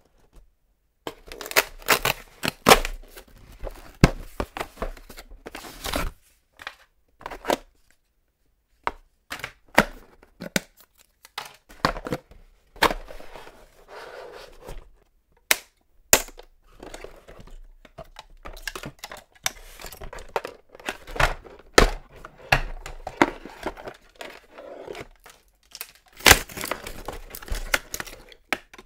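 Hands opening toy packaging: cardboard and plastic tearing, rustling and crinkling, with irregular sharp snaps and a brief pause. Near the end, a die-cast toy car's clear plastic bag crinkles as it is unwrapped.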